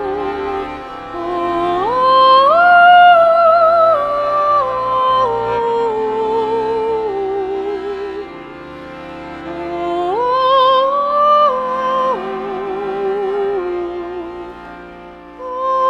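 Accordion playing a slow melody of long held notes over sustained chords; the tune climbs twice to a higher held phrase and steps back down.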